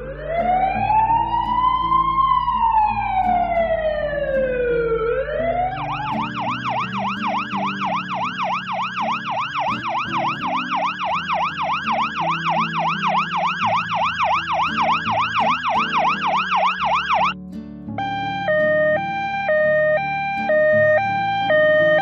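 Electronic siren sound effect. First a slow rising and falling wail, then a fast yelp of rapid up-and-down sweeps, and after a short break near the end a two-tone hi-lo siren alternating between two notes, over soft background music.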